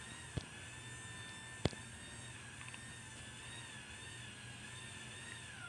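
LiftMaster 87504-267 garage door opener running the door down: a quiet, slightly wavering motor whine with two sharp clicks in the first two seconds, winding down in pitch and stopping near the end as the door reaches the floor.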